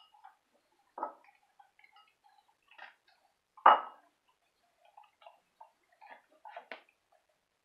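A dog eating from its bowls on a tile floor: scattered small clinks and ticks as it works the bowl, with a sharper knock about a second in and one loud knock of a bowl about three and a half seconds in.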